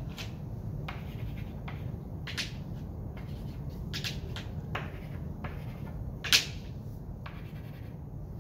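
Students writing on paper: scattered short scratching and rustling strokes over a steady low room hum, with one sharp click about six seconds in.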